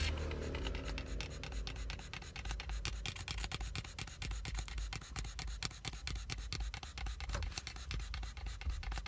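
Pomeranian panting in quick, even rasping breaths, over the low rumble of a car.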